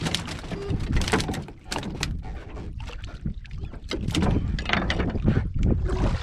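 Clicks and knocks from fishing line and tackle being handled in a small wooden boat, over a low rumble of water and wind.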